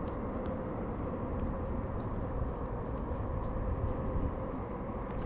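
Steady low wind rumble on the microphone, with a few faint small clicks from handling the fish and fly.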